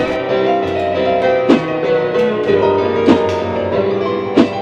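Piano music: a lively piece of held chords and runs, with a strong accented note or chord about every one and a half seconds.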